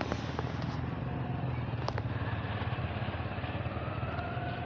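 Speedboat engine running steadily at speed, a low hum, with a faint whine rising in pitch over the last couple of seconds as the boat approaches.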